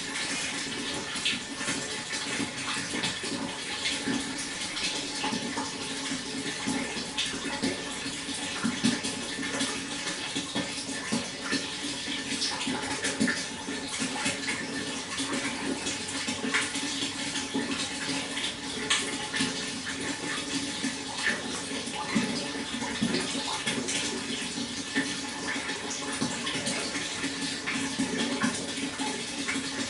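Water flowing and splashing: a steady rush dotted with many small splashes.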